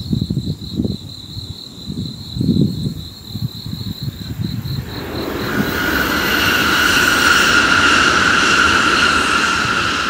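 Shinkansen bullet train passing at speed on the viaduct: a rising rushing hiss with a whining edge that builds from about halfway, is loudest near the end and starts to fade. Under it, an insect's steady pulsing trill, and in the first half low gusts of wind.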